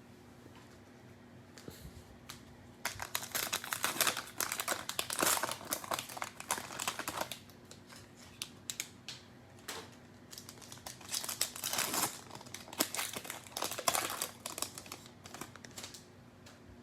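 Crinkling plastic cello wrapper of a pack of trading cards being handled and opened, in two long spells of crackle with scattered light clicks between them.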